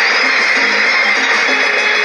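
Bollywood film song playing from a cassette on a Philips AM174 portable cassette player, heard through its small built-in speaker: an instrumental passage, thin with no deep bass.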